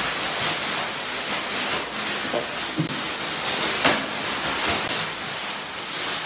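Thin plastic sheeting crinkling and rustling as it is pulled and bunched off a radiator by hand, with a few sharper crackles, the loudest just before four seconds in.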